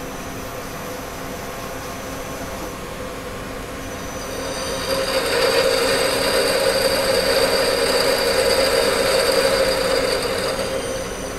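Miyano BND-34S CNC turning center running with a steady hum. About four seconds in, a whine rises, holds steady, and dies away near the end.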